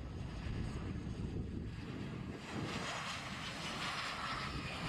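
Jet engines of a Citilink airliner coming in to land, over a low wind rumble on the microphone; the engine hiss grows louder about halfway through as the plane flares and touches down.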